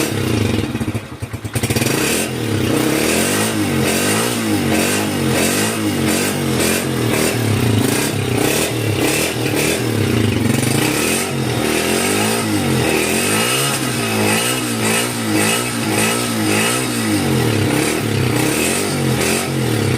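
Motorcycle engine running on a Yutaka contact-breaker point ignition. The engine speed keeps rising and falling a little, with a brief stutter and drop about a second in.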